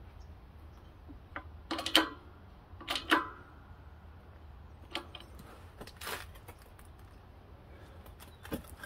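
A handful of separate metallic clicks and knocks from tools and parts being handled during bearing installation in a scooter transmission case, the loudest about two seconds in and another about a second later.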